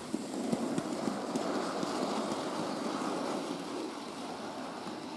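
Bachmann model of an LMS 3F steam locomotive and its goods wagons rolling past on the track: a rumbling clatter of wheels on rail, with a few clicks in the first second. It swells as the train passes close and fades as the train moves away.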